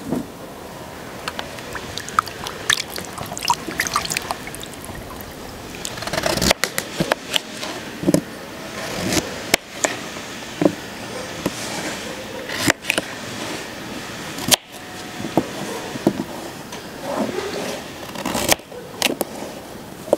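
Kitchen knife cutting raw beets and a white root vegetable on a wooden cutting board: irregular short knife strokes and taps of the blade against the board, with pieces being handled in between.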